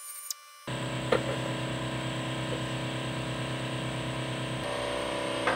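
A steady mechanical running sound with a low hum starts abruptly about half a second in, with a few light metallic clinks over it.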